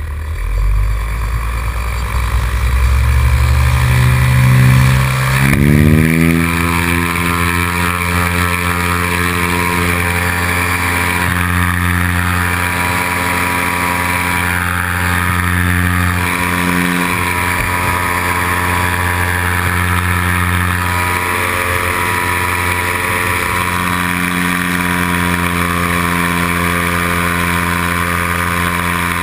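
Powered paraglider's backpack paramotor engine and propeller being throttled up for the takeoff run, rising in pitch over the first six seconds, then running steadily at high power through liftoff and the climb.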